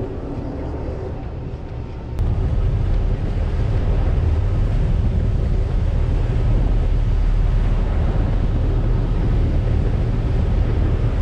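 Boat under way: engine running with water rushing past the hull and wind buffeting the microphone. The low rumble jumps suddenly louder about two seconds in and stays steady after that.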